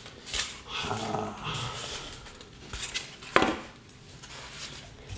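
Moulded plastic tray and polystyrene packing being handled as a large spiral light bulb is lifted out: scraping and creaking, with a few clicks, the loudest a sharp click a little over three seconds in.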